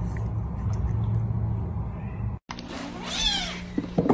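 A low steady hum cuts off suddenly, and then a cat meows in a wavering, falling call about three seconds in. The call sounds like "nom nom".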